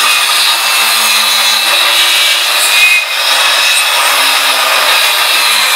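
Handheld Planet Power electric circular saw running at full speed and cutting through a wooden board, a loud, steady high-pitched whine of blade through wood.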